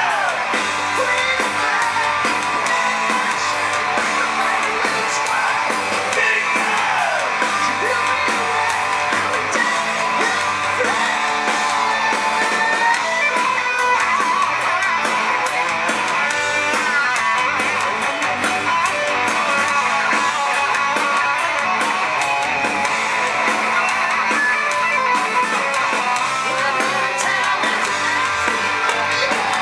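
Hard rock band playing live: electric guitars and drums at a steady, loud level, heard from the crowd.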